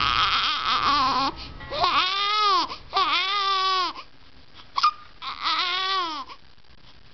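Infant crying in four drawn-out wails, each rising and then falling in pitch, with a short sharp sound between the last two, while she has the hiccups; it quietens near the end.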